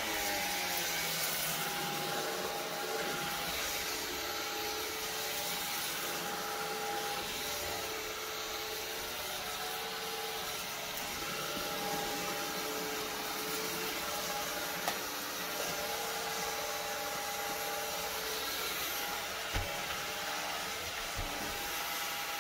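Shark Cordless Pet Plus stick vacuum running steadily on a hardwood floor in its bare-floor setting: a steady motor whine over airflow noise, spinning up at the start, with a few faint clicks near the end.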